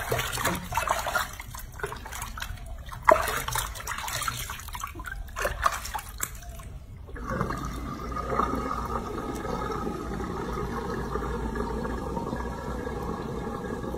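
Water splashing in a bathroom sink as hands scoop and pour it over a baby monkey being bathed. About seven seconds in the splashing stops and the sink drains with a steady rushing gurgle.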